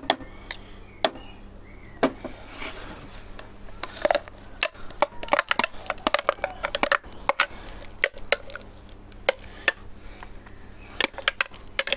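A spoon scraping and tapping inside a clear plastic blender jug as thick homemade mayonnaise is scooped out: many irregular clicks and knocks, some sharp, with softer scraping between them.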